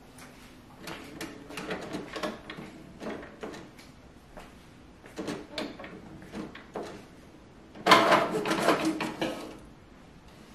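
Canon Pixma iX6820 inkjet printer's mechanism working as a print job starts: a run of irregular clicks and short motor whirs, then a louder clattering whir for over a second near the end.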